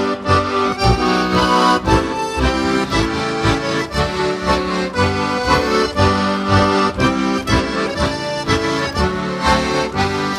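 Slovak heligónka (diatonic button accordion) playing a folk tune without singing, a reedy melody and chords over a steady, evenly pulsing bass.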